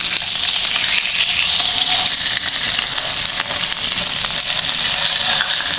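Fish fillets sizzling steadily in a little oil in a non-stick frying pan while they are turned over with a fork and a silicone spatula.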